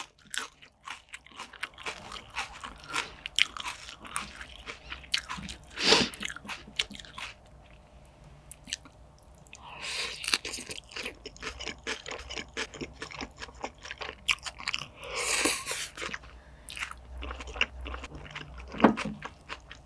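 Close-miked chewing and crunching of fresh salad vegetables eaten with caviar: a run of crisp bites and small mouth clicks, with denser crunching a couple of times.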